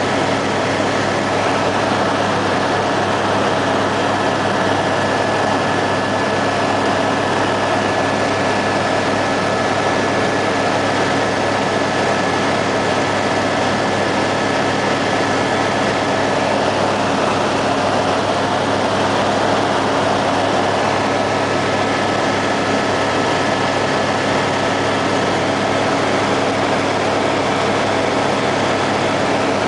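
Helicopter in steady cruise heard from inside the cabin: a constant engine and rotor drone with a thin, steady whine over it.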